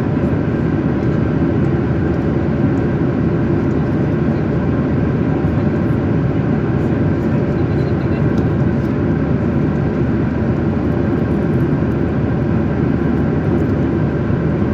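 Steady, loud cabin noise of a jet airliner in flight: the even, deep rush of the engines and airflow, with no change in pitch or level.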